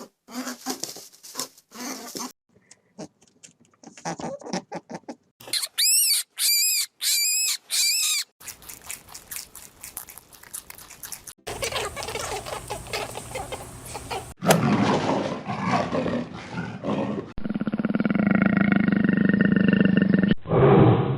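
A series of different animal calls and roars, separate recordings spliced one after another with abrupt cuts; among them a run of about four pitched calls, each rising and falling.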